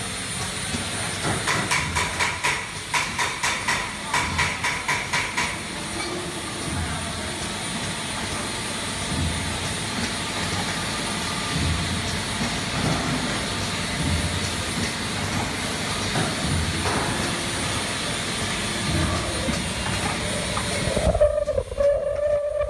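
Triangle nylon tea bag packing machine running: a steady mechanical hum with a dull thump every second or two. For a few seconds after the start a fast run of ticks comes with it. Near the end the sound turns muffled, with a steady tone.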